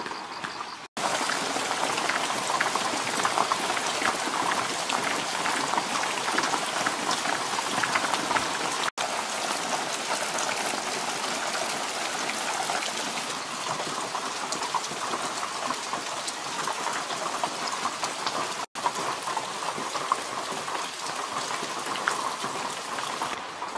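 Steady rain, a dense patter of drops striking a surface. The sound cuts out for an instant three times.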